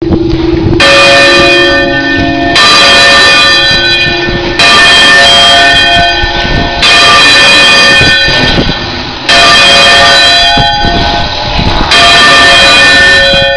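Church bells swung full circle by electric motor in a Spanish volteo peal, heard close up in the belfry. The clapper gives six loud strokes about two seconds apart, each leaving a long ringing tone that overlaps the next.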